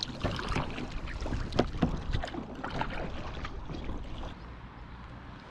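Paddle strokes splashing in the water beside an inflatable packraft, as irregular splashes that thin out and grow quieter over the last couple of seconds.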